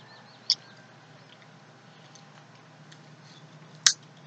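Two short, sharp crunches of a Pringles potato crisp being bitten, about half a second in and again near the end, with quiet between.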